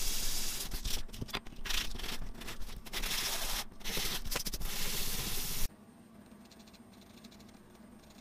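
Machined aluminum dog tag rubbed by hand back and forth on 400-grit sandpaper, a gritty scratching in repeated strokes, to take the machining swirl marks off its face. The sanding cuts off suddenly about two-thirds of the way through.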